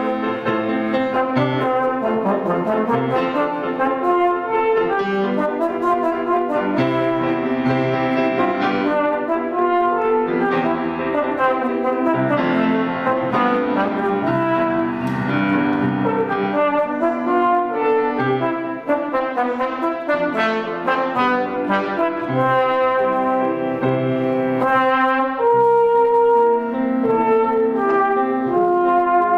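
A German romantic-style trombone plays a continuous lyrical melody of sustained, connected notes, with piano accompaniment underneath.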